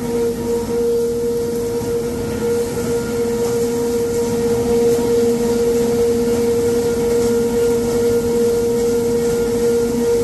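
Paper-handling machinery on a corrugated cardboard production line running steadily, the paper web feeding off large reels over rollers: a constant machine hum with a held mid-pitched tone over an even rushing noise.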